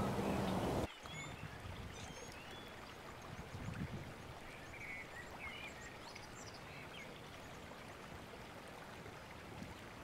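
Faint outdoor ambience of a shallow stream running over rocks, with scattered small birds chirping. A louder steady noise stops suddenly about a second in.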